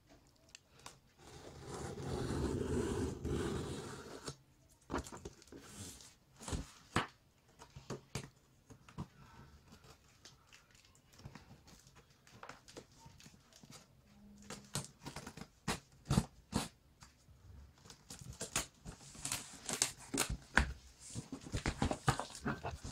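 A knife slitting the packing tape along a corrugated cardboard shipping box in one long scraping stroke, a second or so in. Then the cardboard is handled and the taped flaps are pulled open, in scattered crackles and clicks that grow busier near the end.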